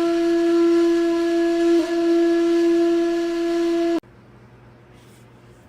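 A wind instrument holding one long steady note, with a brief break about two seconds in, then cutting off suddenly about four seconds in; faint room noise follows.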